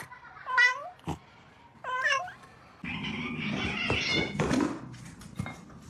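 Domestic cat meowing twice in short calls, followed by about two seconds of a rougher, noisier sound.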